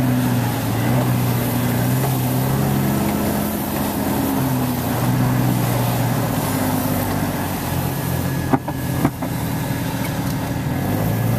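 Jeep Wrangler engine running at low speed, heard from inside the cab as a steady drone that rises and falls a little. Two sharp knocks about half a second apart come about three-quarters of the way through.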